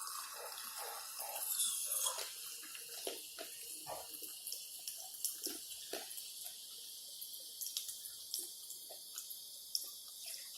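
Carbonated soda fizzing in a glass of ice just after pouring, a fine hiss with many small crackles and pops.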